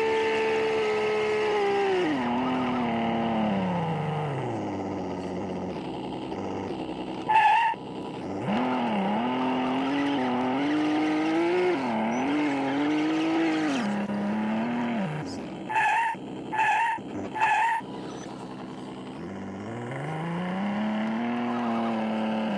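Radio-controlled off-road car's motor whining under throttle, its pitch sliding up and down. It dies away about four seconds in, comes back wavering, stops again, then rises near the end. Short high chirps sound once about seven seconds in and three times in a row around sixteen seconds.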